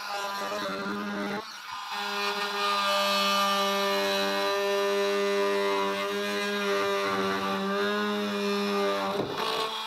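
Oscillating multi-tool with a Starlock blade cutting a notch in a wooden floor joist, a steady buzzing drone that dips briefly about one and a half seconds in.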